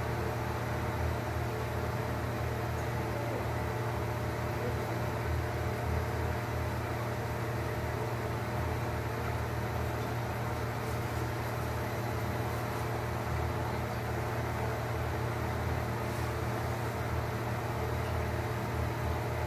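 A steady low machine hum with a constant hiss, unchanging throughout, like a fan or air conditioner running.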